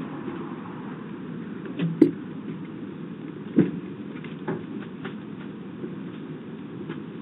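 Steady outdoor background noise picked up by a Ring doorbell camera's microphone, with a few short knocks or clicks: a sharp one about two seconds in, another about three and a half seconds in, and a fainter one a second later.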